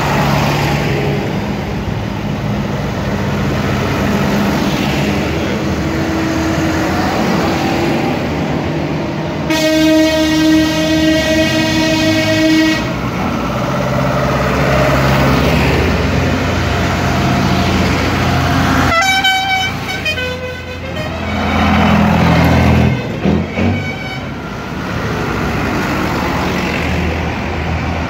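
Farm tractors' diesel engines running as a column of tractors drives past. A horn gives one long blast of about three seconds roughly ten seconds in, then several short toots around twenty seconds and again a few seconds later.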